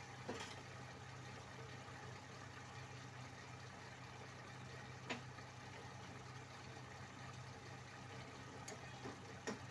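Beef keema simmering in a pan, a faint bubbling hiss over a steady low hum. A metal spatula clicks against the pan a few times: near the start, about halfway through, and two or three times near the end.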